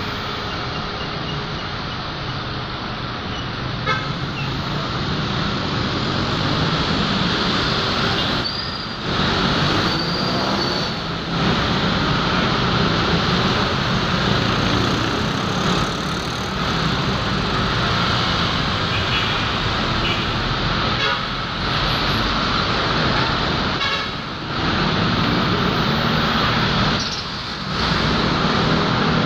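Steady noise of dense city traffic on a multi-lane avenue: cars, vans, jeepneys and motorcycles driving past, with a few short horn toots.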